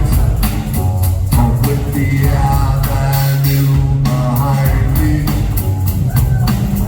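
Live rock band playing, with a heavy, prominent bass line, drum kit with cymbals, and short phrases of sung vocal over the top.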